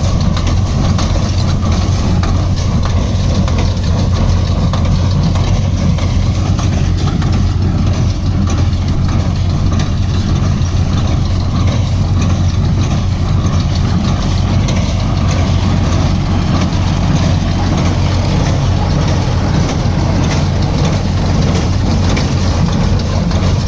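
Heavy machinery running steadily, a constant low hum under a dense mechanical clatter.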